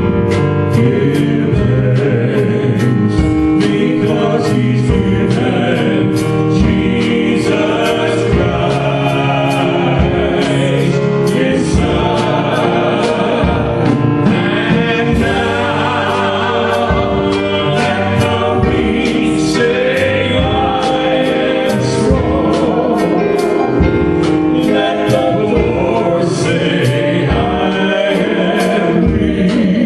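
Gospel worship song: voices singing together over instrumental accompaniment with a steady beat.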